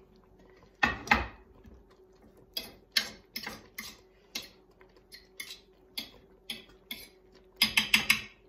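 A ceramic plate set down on a wooden cutting board with a double knock about a second in, then a utensil clicking and scraping against the plate in irregular taps, quickening near the end. A faint steady hum runs underneath.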